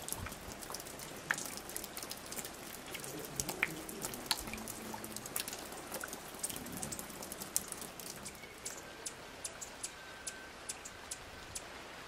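Water dripping onto rainforest leaves: many irregular small ticks and drips over a faint steady hiss. A faint steady tone sounds for about two seconds near the end.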